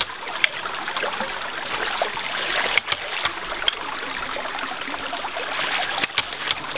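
Homemade hydraulic ram pump running in a creek: water spurting and splashing out of its brass waste valve over the steady rush of the stream, with a few sharp clicks as the waste valve snaps shut.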